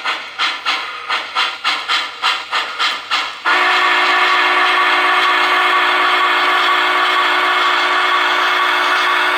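Sound decoder of a model Union Pacific 4-8-8-4 Big Boy steam locomotive: exhaust chuffs at about three to four a second. About three and a half seconds in, a long, loud steam whistle blast of several tones cuts in and holds.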